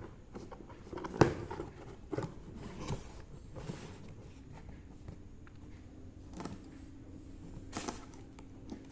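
A packaging box being opened and handled: scattered rustles, scrapes and small knocks, with a sharp knock about a second in.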